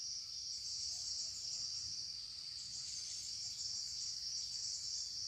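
Insects chirring in a steady, high-pitched drone that goes on without a break.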